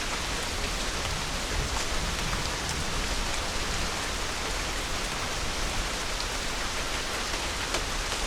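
Steady rain falling, with the patter of individual drops striking surfaces.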